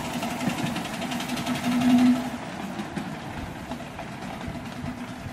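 7¼-inch gauge miniature steam locomotive running along the track with a fast, even beat, fading after about two seconds as it draws away. A steady low tone swells briefly about two seconds in, the loudest moment.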